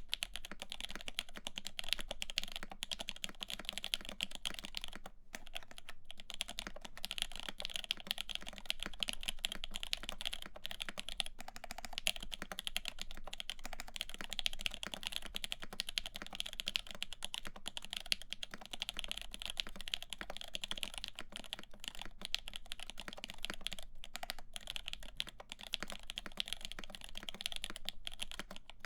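Fast, continuous typing on a CAKE60 mechanical keyboard with lubed Lavender linear switches, 65 g springs, an FR4 full plate and GMK keycaps: a dense run of soft key clacks with brief pauses about five seconds in and near twenty-four seconds.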